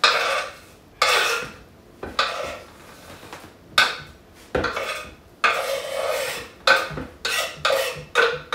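Knife blade scraping across a wooden chopping board, sweeping chopped scallion, sweet pepper and onion off into a plastic bowl: a dozen or so short scrapes at an uneven pace.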